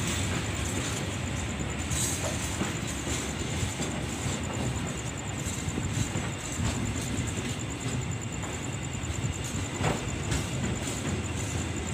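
A diesel-hauled train running past on the rails, a steady rumble of wheels on track with a few faint clicks.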